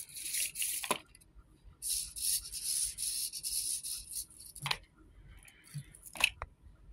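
Small servos of Petoi Bittle robot dogs buzzing with a high, hissy whir as the gyro tilt sensor drives the legs while a robot is tilted by hand. There is a short burst at the start and a longer one from about two seconds in, then a few light clicks near the end.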